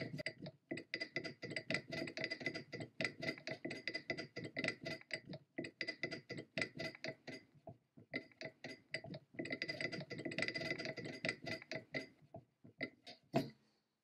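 A brass rod being twisted and worked out of its metal bushing on an antique centrifugal dental casting machine's arm: rapid gritty metal-on-metal scraping with a ringing tone, in two long bouts with a short pause partway. Near the end there is a sharp click as the rod comes free.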